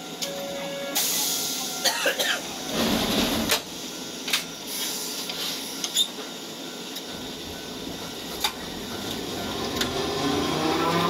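Hankai Tramway tram: short bursts of compressed-air hiss and scattered clicks, then the motors start a rising whine near the end as the tram pulls away.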